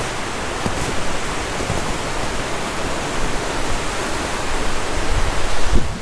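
Raging mountain river running high with spring snowmelt: a steady, even rush of whitewater.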